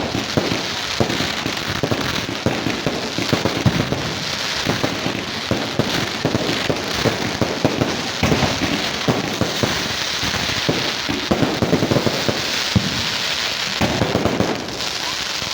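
Fireworks going off in a rapid, continuous barrage of cracks and pops, many overlapping, with no pause.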